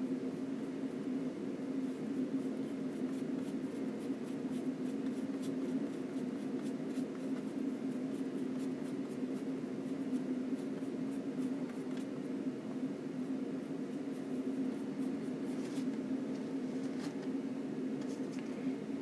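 A flat oil-painting brush scratching and dabbing paint onto a linen panel in faint, short strokes, thickest in the first half, over a steady low hum.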